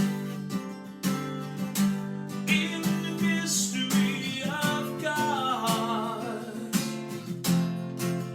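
Worship song: strummed acoustic guitar chords with a singing voice holding long, drawn-out notes.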